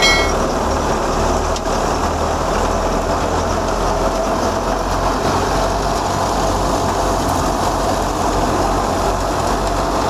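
Tractor-driven wheat thresher running steadily under load as wheat is fed in: the tractor engine drives the threshing drum by belt and pulley, making one continuous loud mechanical din with a low hum. A brief high chirp sounds right at the start.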